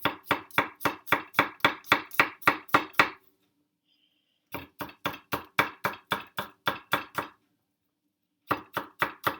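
Kitchen knife finely chopping onion: quick, even strokes about four a second, in three runs with short pauses about three and eight seconds in.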